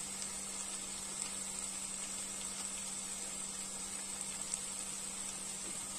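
Vegetables frying gently in an oiled kadai, a soft steady sizzle with a low steady hum underneath.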